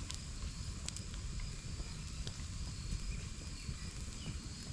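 Small campfire of dry kindling burning: a low, fluttering rush of flames with a few sharp crackles and pops.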